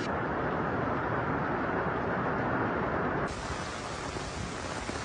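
Heavy rain pouring down in a steady hiss; about three seconds in, the sound changes to the rush of floodwater flowing fast.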